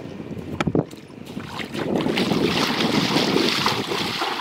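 Wind buffeting the microphone outdoors: a rough, rushing noise that swells up about a second and a half in, after a few sharp clicks near the start.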